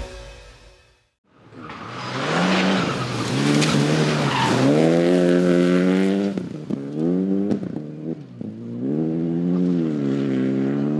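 Rally car engine fading in and accelerating hard, revs climbing and dropping back with several quick gear changes, then held high.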